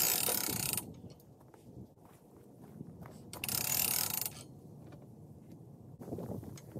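Raccoon being skinned on a trailer hitch skinning machine: two harsh, hissing bursts of about a second each, one at the start and one about three and a half seconds in, over low rustling and handling noise.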